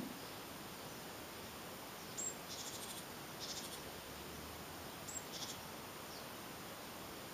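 A small songbird calling: a thin high note followed by a quick buzzy chatter, about two seconds in and again about five seconds in, with another chatter in between. Steady faint outdoor hiss underneath.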